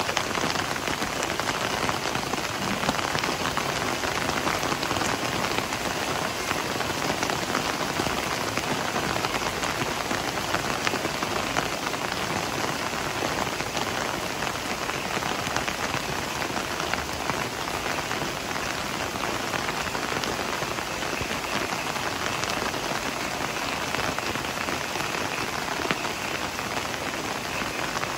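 Heavy rain falling steadily: a dense, even hiss with many fine drop impacts.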